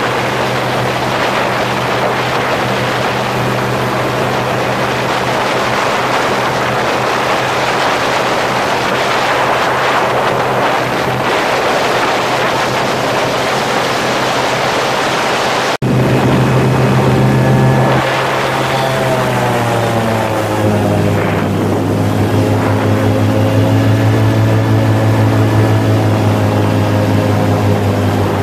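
Airboat's engine and big air propeller running loudly. About 16 s in there is a momentary break, after which the engine tone is louder and clearer, its pitch shifting for a few seconds as the boat speeds up, then holding steady.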